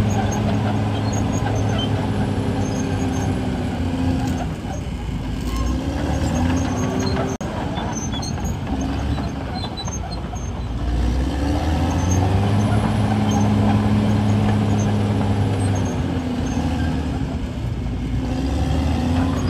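CAT D6R crawler dozer's diesel engine running under load as the dozer pushes soil with its blade, its pitch rising and falling as the revs change.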